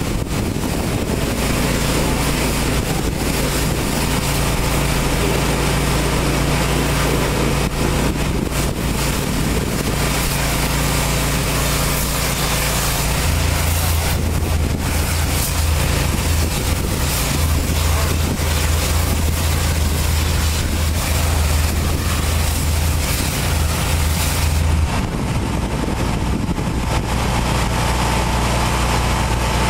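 Pressure washer running: a steady engine drone under the loud hiss of the high-pressure spray hitting the truck. Near the end the spray stops and the engine keeps running.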